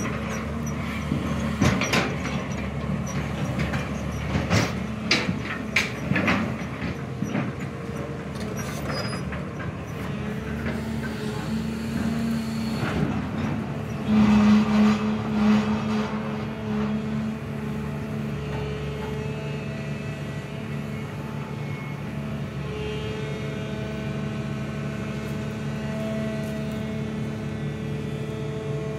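SANY hydraulic crawler excavator running at work, its diesel engine holding a steady note. Sharp knocks and clatter come through in the first several seconds while the machine digs. The engine gets louder for a few seconds about halfway through, then settles back to a steady run.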